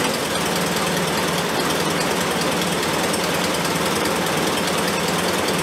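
Triumph Spitfire four-cylinder engine on twin SU carburettors idling steadily at about 1,000 rpm, freshly started and warming up.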